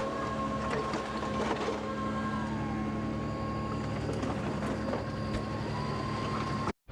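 Kubota KX080 excavator's diesel engine running steadily, with a high whine that slides down in pitch and later climbs back as the machine works, and a few sharp knocks. The sound cuts off suddenly near the end.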